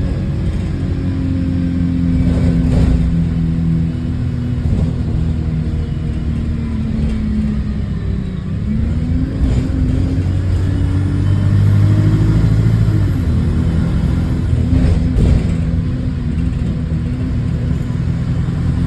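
Bus engine heard from on board, its note falling as the bus slows about eight seconds in, then rising again as it pulls away, with a few knocks from the body over bumps. The bus has an exhaust leak.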